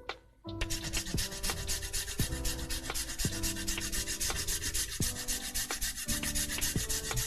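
A frozen piece of ginger being grated by hand, the rapid back-and-forth strokes rasping steadily against the grater.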